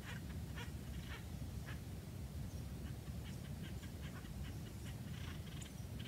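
Short, harsh animal calls, a few spaced out, then a quick run of them about three seconds in, over a steady low rumble.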